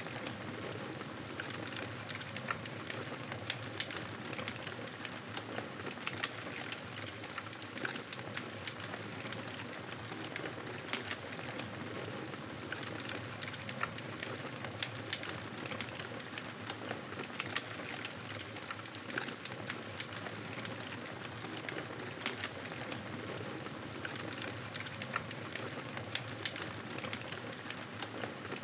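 Wood campfire burning, a steady hiss and rustle of flames with irregular sharp crackles and pops from the burning wood.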